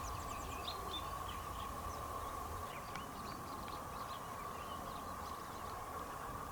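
Small birds chirping and calling in short, scattered notes, over a faint steady hum.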